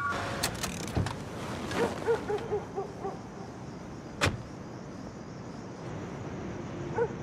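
Car door and handling sounds as a man gets into a parked car: a few knocks, with one sharp car-door clunk about four seconds in.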